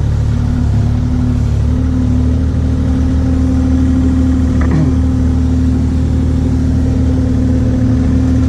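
Kubota 040 compact excavator's diesel engine running steadily, with a short falling whine about halfway through.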